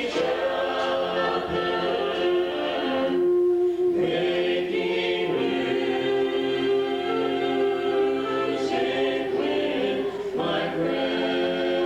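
A small vocal group of about nine voices singing in harmony, holding long chords, with short breaks between phrases about three seconds in and again near ten seconds.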